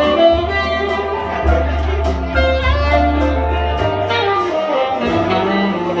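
Tenor saxophone played live, a flowing melody of connected notes over an accompaniment with a bass line that changes note about once a second.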